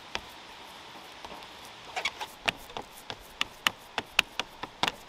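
Hands pressing and patting raw ground beef into burger patties on a cutting mat on a folding table. Quiet for about the first two seconds, then a run of irregular sharp taps and slaps.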